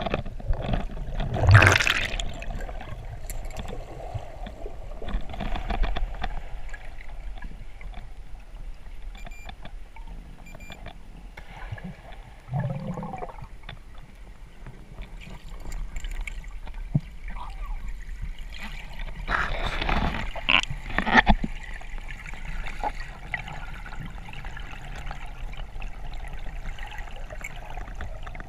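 Underwater water noise picked up through a camera in a waterproof housing: a steady muffled wash of moving water with gurgling and bubbling. Louder bursts come about a second and a half in, briefly near the middle, and in a cluster about two-thirds of the way through.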